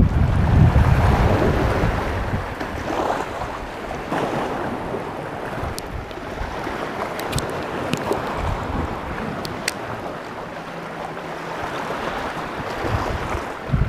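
Strong wind buffeting the microphone with a low rumble, over choppy sea water washing against rocks. A few faint clicks come midway.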